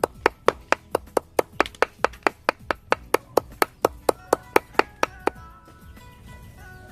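A knife chopping rapidly on a cutting board, mincing whole frogs bone-in into a fine mince, in steady strikes about four a second that stop about five seconds in. Faint background music comes in near the end.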